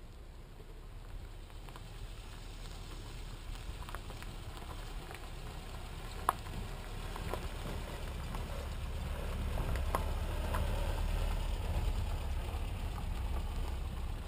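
Small pickup truck driving along a rough dirt track: a low engine and tyre rumble that grows louder as it comes closer, with scattered sharp clicks and crunches of stones underfoot or under the wheels.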